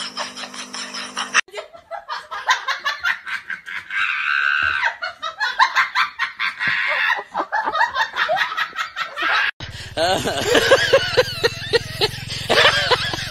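People laughing in short, choppy bursts. The sound changes abruptly twice as the clips cut.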